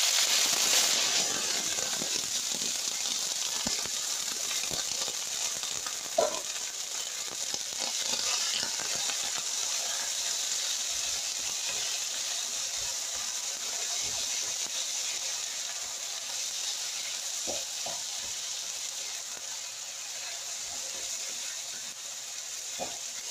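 Vegetables tipped into hot oil in a wok, sizzling at once and going on frying, slowly dying down, while a spatula stirs them with a few knocks and scrapes against the wok.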